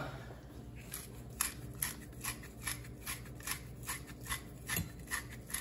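Hand-twisted pepper mill grinding pepper, a short dry crunching click with each twist, about two to three a second, starting a little over a second in.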